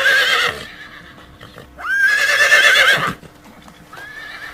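Horse whinnying: a short neigh at the start, then a longer one with a wavering high pitch about two seconds in, and another starting near the end.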